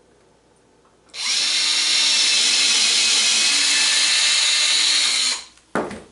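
Cordless drill with a 3/16-inch bit running at a steady speed for about four seconds, boring through a rubber brush strip and the saw's dust shroud, then stopping. A short knock follows as the drill is set down.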